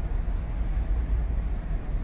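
Steady low rumble of a harbour tug's engine working against a cruise ship's hull, with wind buffeting the microphone.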